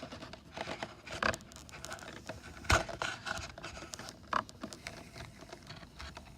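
Handling noises from a model RC jet being turned over in the hands: rubbing and scraping with a few light knocks, the sharpest about two and a half seconds in.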